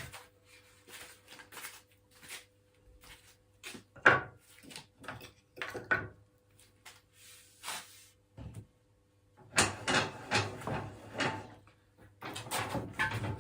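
A piece of wood and hand tools being handled: scattered knocks, clicks and scrapes. A busier run of knocks and rubbing comes in the last few seconds.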